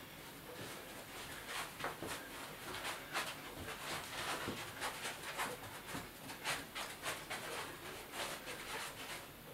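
A person panting in quick, irregular breaths.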